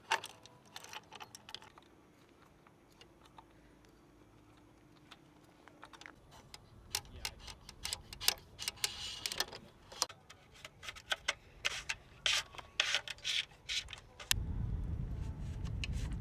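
Irregular clicks and taps of hand tools and metal bike parts being handled during a mountain-bike build: a few at first, then many in quick succession. About fourteen seconds in, a steady low rumble starts and holds.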